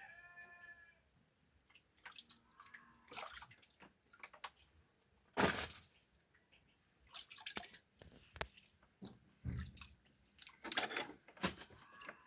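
Water sloshing and splashing in a basin in irregular bursts as fresh carrots are washed by hand.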